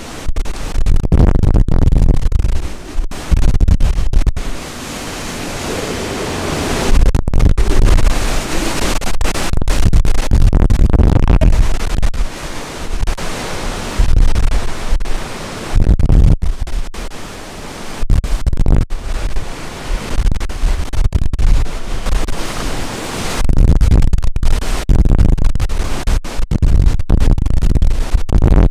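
Hurricane-force wind and driving rain, with heavy wind buffeting on the microphone. It comes as a deep rumble in loud surging gusts with brief lulls.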